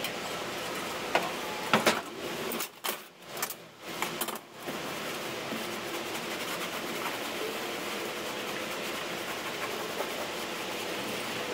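A steady rushing hum, with a few sharp clicks in the first two seconds and the hum dipping and breaking up for about two seconds a little later.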